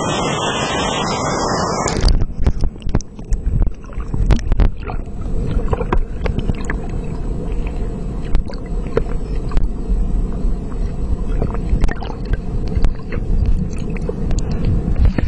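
Waterfall crashing into its pool as a steady, dense roar for about two seconds, then suddenly muffled as the camera goes underwater: a low rumble of the falling water heard through the water, with many sharp clicks and knocks.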